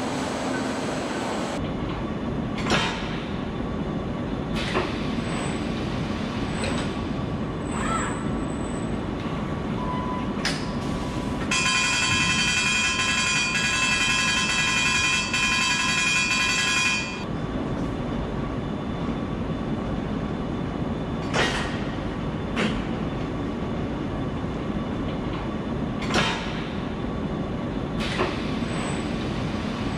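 Automated assembly-line machinery running with a steady mechanical hum, broken by scattered sharp clicks and knocks. About twelve seconds in, a loud buzzing tone starts and holds for about five seconds, then stops abruptly.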